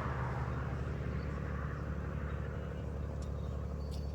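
Steady low hum of a distant engine, with faint ticks now and then.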